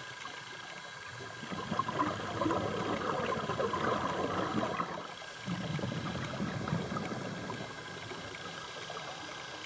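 Air bubbling out of a scuba regulator underwater, heard as two rushing, crackling bursts of bubbles with a short break between them.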